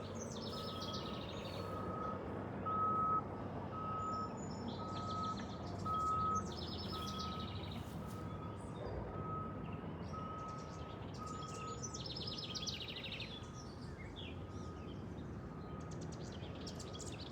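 Small birds singing in quick, high trilled phrases over a steady series of short electronic beeps, about one every 0.7 s, that fade out after about twelve seconds, like a vehicle's reversing alarm. A low background rumble runs under both.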